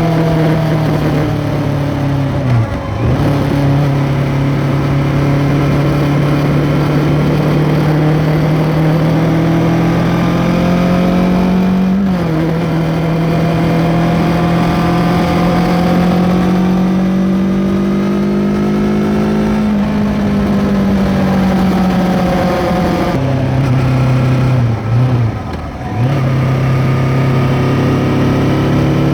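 Kawasaki Ninja 650 parallel-twin engine with an Arrow X-Kone exhaust (dB killer fitted), heard from under the seat while riding. The engine note holds mostly steady, dips briefly about three seconds in, steps down in pitch about twelve seconds in, rises and falls slowly, then drops and dips twice near the end before picking up again.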